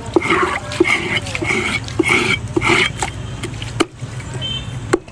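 A knife working a grass carp on a chopping board: about half a dozen sharp strokes at a steady pace of roughly two a second, then a few scattered knocks.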